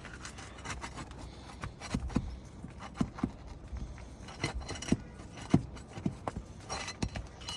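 A metal tool tapping, knocking and scraping irregularly against roofing shingles and nails, about a dozen sharp knocks, while working loose roofing nails that are rusted and stuck in place.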